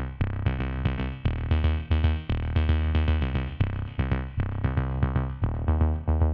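Electronic background music with a steady drum-machine beat and a synthesizer bass line.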